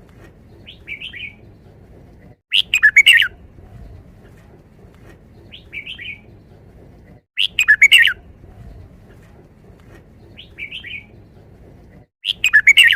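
Red-whiskered bulbul singing its five-syllable song phrase three times, a burst of about five quick, loud whistled notes every five seconds or so, with softer, shorter calls in between.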